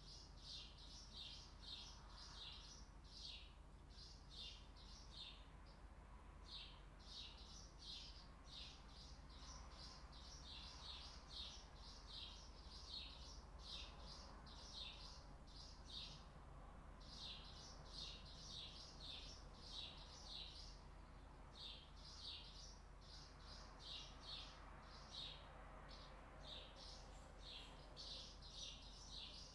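Small animal chirping high and rhythmically, about three short chirps a second in runs of a few seconds with brief pauses, over a faint low hum.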